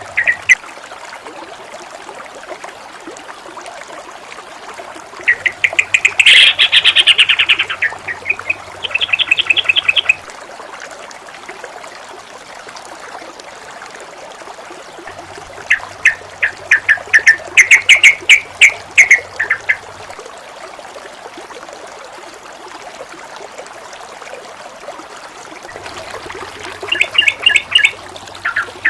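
Bird chattering in bouts of rapid, repeated notes, three bouts a few seconds long each: about five seconds in, around fifteen seconds in, and near the end. Under it runs a steady rush of flowing water, and a low hum comes in with each bout of calls.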